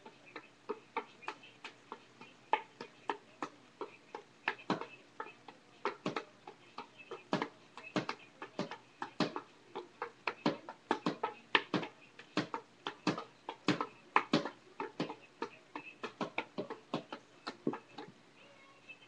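Juggling clubs slapping into the hands as they are caught, a quick, uneven run of sharp taps several times a second.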